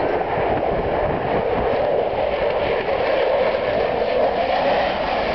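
Steady engine noise of an aircraft flying overhead, growing a little louder about halfway through.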